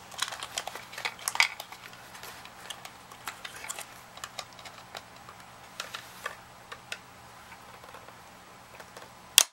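Scattered small clicks, taps and scrapes of a metal pick and fingers prying at plastic clips inside a CPAP machine's plastic housing, with one sharp, louder click near the end.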